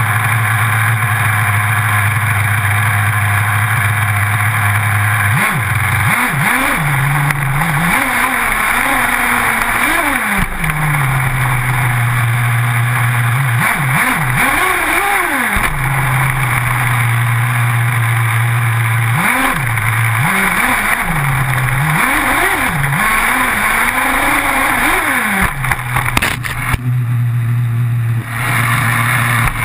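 Small two-stroke engine of an HPI radio-controlled car, heard from a camera mounted on the car. It idles steadily, then revs up and down in several bursts of throttle, dropping back to idle between them. A steady hiss runs under it, and near the end the sound goes briefly muffled.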